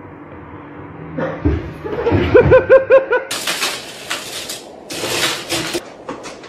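A person laughing in quick, loud bursts, then two harsh rattling rushes, each under a second, as wood-pellet cat litter is scooped and stirred in a plastic litter tray.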